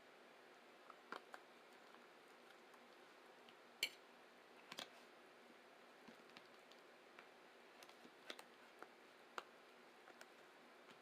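Near silence broken by scattered soft clicks and taps of eating and handling food, a dozen or so at irregular intervals, the loudest about four seconds in.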